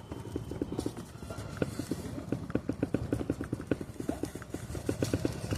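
A rapid run of short knocks in a clip-clop rhythm, several a second in uneven clusters.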